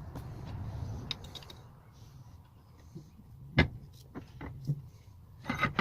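A few sharp knocks and clicks over a low steady hum, the loudest a little past halfway and a quick cluster near the end.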